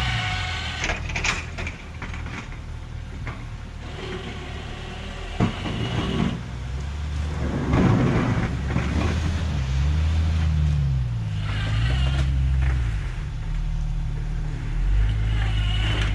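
Jeep Wrangler TJ engine running while plowing snow, its revs rising and falling several times as the Jeep pushes and backs off, with a louder, rougher stretch about halfway through.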